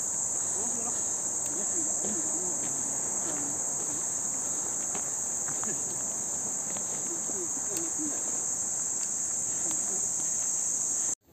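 A steady, high-pitched insect chorus buzzing without a break in the woodland, cutting off suddenly near the end. Faint footsteps on the dirt track sound underneath.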